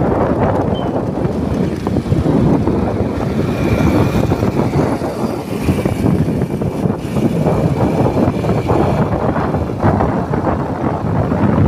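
Wind buffeting the microphone on a moving motorcycle at road speed, with the engine and tyre noise mixed in underneath as a loud, rough rumble.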